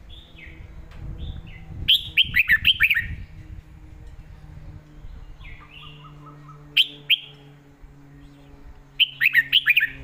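Red-whiskered bulbul singing in short, loud phrases of quick whistled, down-slurred notes. There is one phrase about two seconds in, a pair of sharp notes around seven seconds, and another phrase near the end. This is the doubled-note (เบิ้ล) style of song that the keeper values.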